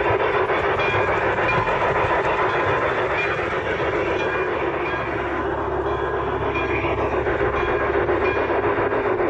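G-scale model steam locomotive running along the track, heard up close from the train it pulls: a steady motor and wheel noise with its built-in steam sound effects and wheels clicking over the rail joints.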